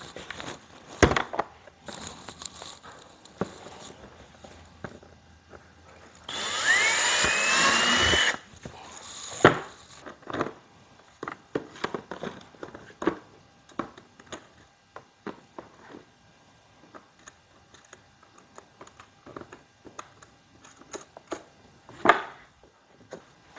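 Cordless drill boring a hole through the plastic wall of a toolbox for about two seconds, its motor whine rising as it spins up. Before and after, scattered clicks and knocks of plastic and small parts being handled as the shunt is fitted.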